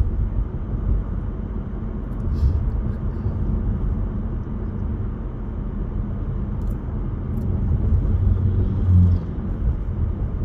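Steady road and engine rumble heard from inside a moving car's cabin, with a few faint clicks.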